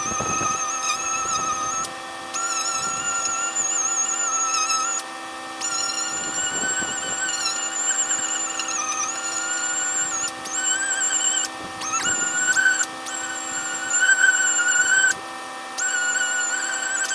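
Orbital sander working over the fiberglass gel coat of a boat hull, scuffing it for paint. It makes a high whine that wavers and dips in pitch as the pad is pressed and moved, and cuts off abruptly several times before starting again.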